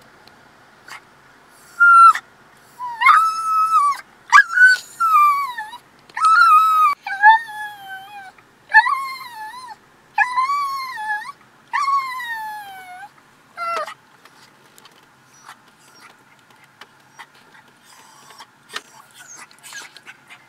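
Pug whining in high-pitched, drawn-out cries, about eight whines each falling in pitch, over some ten seconds; the whining then stops, leaving only small clicks.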